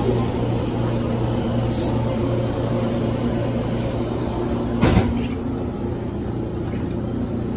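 Steady low hum of a train standing at the platform, with a single sharp thump about five seconds in.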